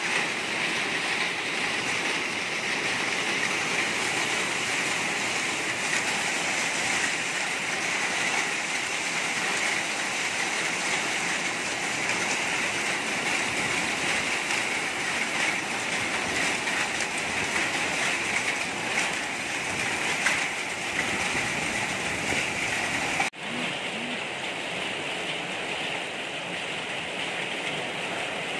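Rain mixed with small hailstones falling on a corrugated metal sheet roof: a dense, steady patter, with a brief break about twenty-three seconds in, after which it is a little quieter.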